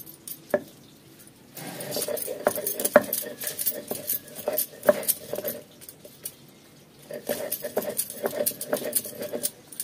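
Stone muller rubbed back and forth across a stone grinding slab (sil), crushing onions and garlic into masala paste: gritty scraping strokes with many small clicks. It comes in two spells with a pause of about a second and a half in the middle.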